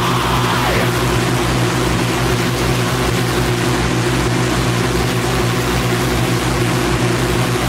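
Power electronics noise track: a dense, steady wall of distorted noise over a low droning hum. A faint wavering tone sits higher up near the start.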